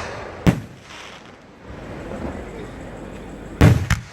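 Fireworks going off: one sharp bang about half a second in, then two bangs in quick succession near the end.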